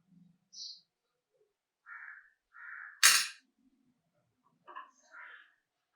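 Short scraping or rubbing noises from hand work on small parts, with one sharp knock about three seconds in.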